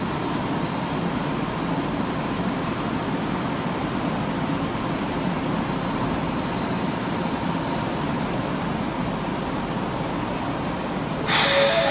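A stopped electric commuter train idling at the platform: a steady hum and hiss from its onboard equipment, with a faint steady tone. A sudden louder sound breaks in near the end.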